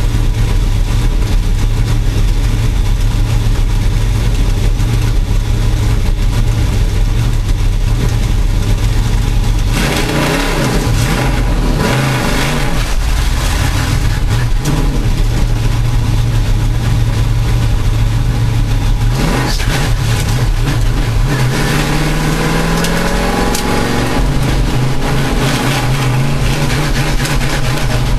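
Race car engine held at steady revs, then about ten seconds in the sound changes and the revs rise and fall; near the end the pitch climbs steadily as the car accelerates away. The engine is reported to be misfiring.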